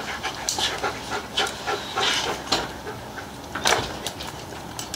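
A dog panting, with sharp clicks and rattles of metal harness buckles and rings being handled and fastened; one louder click comes nearly four seconds in.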